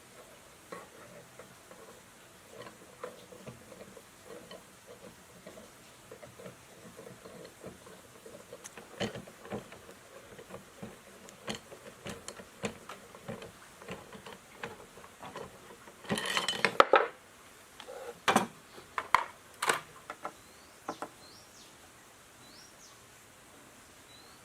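Metal parts and tools handled on a workbench: scattered light clinks and knocks, a short burst of clattering about two-thirds through, then a few loud sharp knocks. Faint bird chirps near the end.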